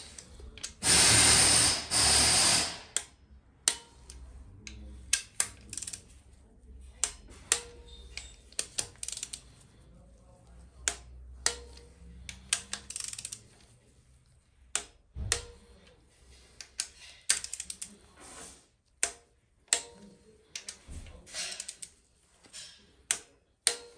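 Hand ratchet clicking and metal tool knocks as the camshaft carrier bolts on a Ford Transit diesel cylinder head are tightened down evenly. A loud rush of dense noise lasts just under two seconds about a second in, followed by scattered sharp clicks and short runs of ratchet clicks.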